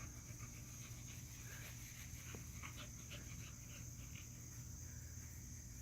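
Faint sounds of puppies playing, with a few short high squeaks or whines in the middle, over a steady chirring of crickets.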